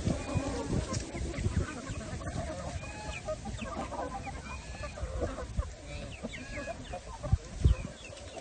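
A flock of chickens clucking, with many short high calls overlapping throughout. A couple of low thumps come near the end.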